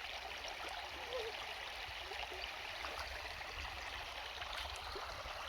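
Small shallow stream flowing steadily over stones, a gentle babbling of running water.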